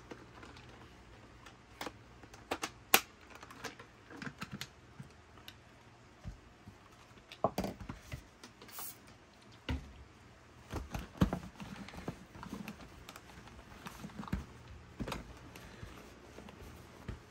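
Irregular clicks, taps and knocks of hard plastic as a Dyson cordless vacuum's body and clear dustbin are handled, set down on a mat and rubbed over with a microfibre cloth.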